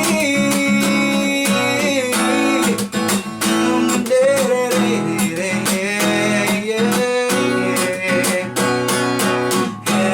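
Acoustic guitar strummed in a steady rhythm, with a sustained melody line over it, in the instrumental break between a sertanejo song's chorus and verse.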